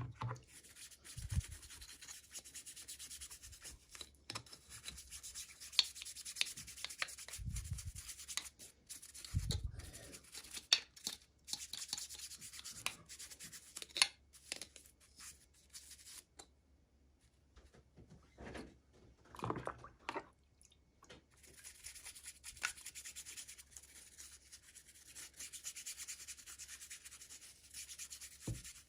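Hands rubbing and rustling packaging during an unboxing, a steady scraping hiss that comes and goes, with many small clicks and a few soft thuds.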